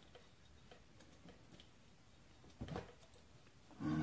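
Faint clicks and taps of metal engine parts being handled as a cylinder is worked down over a Kawasaki Brute Force 750's piston and rings, with one brief louder knock about two and a half seconds in.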